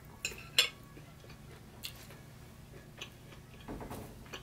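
Close-miked eating: chewing a bite of steak, with a few sharp clicks of a metal fork against a ceramic plate and of the mouth, the loudest about half a second in.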